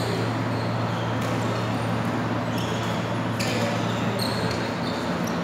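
Badminton rally on an indoor synthetic court: short high squeaks of shoes on the floor and sharp racket hits on the shuttlecock, over a steady low hum.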